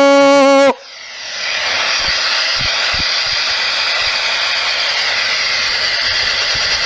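A held musical note cuts off abruptly under a second in. A steady rushing hiss then swells up over about a second and continues evenly.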